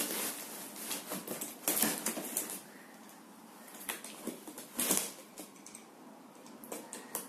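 Utility knife slicing through packing tape along the seam of a cardboard box: scratchy, crackling cuts with a few sharper scrapes, the loudest about two and five seconds in.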